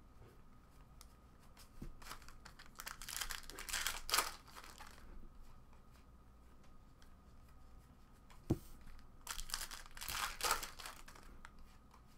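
Trading cards rustling and sliding against each other as they are flipped through by hand, in two longer bursts of crinkling with a single sharp tap in between.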